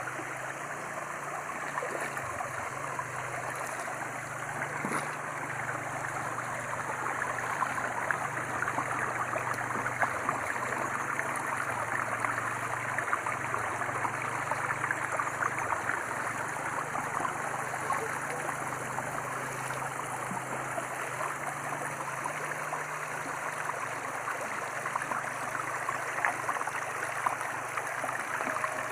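Shallow rocky stream flowing over stones and small rock steps: a steady rush and trickle of water.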